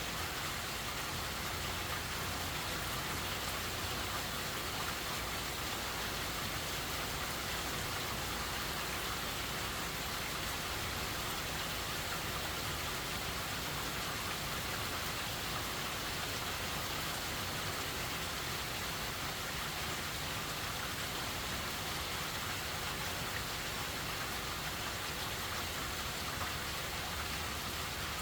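Steady heavy rain falling and pattering on surfaces from the rain bands of Hurricane Helene.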